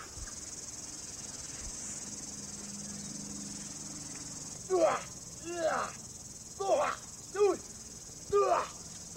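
Steady, high insect chirring. About halfway in, a run of short pitched calls begins, each rising then falling, repeating roughly once a second.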